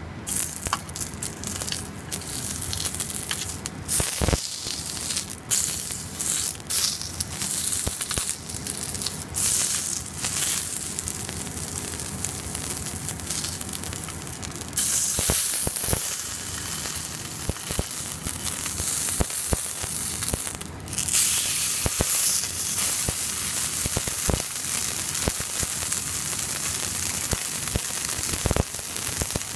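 Beef fillet searing in a hot cast-iron frying pan: a steady sizzle with fat crackling and spitting, and sharp clicks of metal tongs against the pan as the meat is turned onto its sides. The sizzle grows much louder for several seconds about halfway through.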